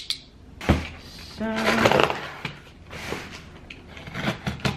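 Cardboard shipping box being cut open with a box cutter and handled: a sharp click less than a second in, then scraping and rustling of cardboard and packing tape, with scattered small clicks.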